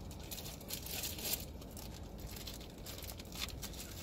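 Packaging crinkling and rustling as accessories are unpacked by hand, in irregular crackles, the sharpest just over a second in.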